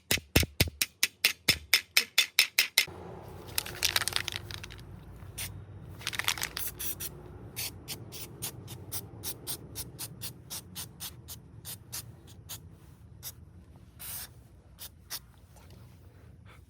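Rapid hammer blows on metal, about five a second, stopping about three seconds in. Then a low steady hum with two short hisses and a run of lighter, regular ticks that fade out.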